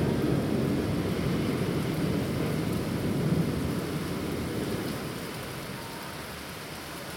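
Rolling thunder from a thunderstorm rumbles for about five seconds and then fades away, over the steady hiss of rain.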